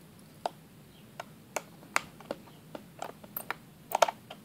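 Small Phillips screwdriver clicking as it works the screws inside a 2007 white MacBook's case: a run of about ten sharp, irregular ticks, the loudest near the end.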